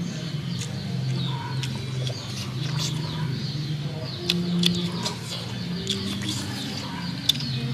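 Eating sounds: sharp mouth clicks and smacks while chewing soft steamed egg, the loudest a little past halfway and near the end. Birds call in the background, with low humming tones that come and go.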